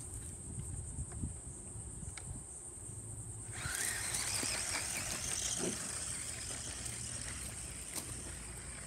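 Radio-controlled toy car's electric motor whirring as it speeds off across grass, setting in a few seconds in with a brief rising whine and then easing off. A steady high-pitched insect drone sounds underneath.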